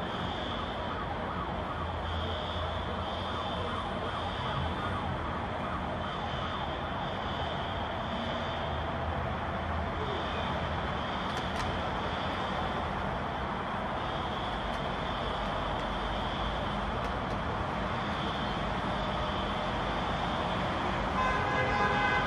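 A siren sounding over steady city noise, its high tone coming and going every second or two.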